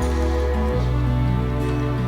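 Background music: soft, slow instrumental with held notes over a steady bass, changing chord about every half second to second.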